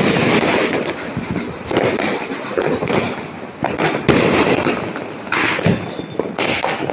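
Fireworks and firecrackers going off in quick succession: a dense, continuous crackling with sharp bangs every second or so.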